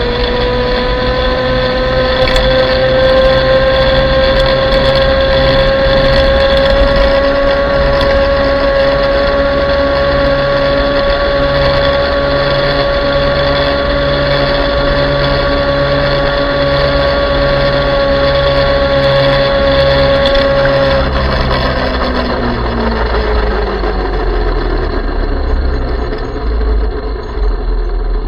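Electric motor of an ME1000 electric mini motorbike whining under way. The whine rises slightly as the bike gets up to speed, holds steady for about twenty seconds, then falls in pitch and fades as the bike slows, over steady wind rumble on the microphone.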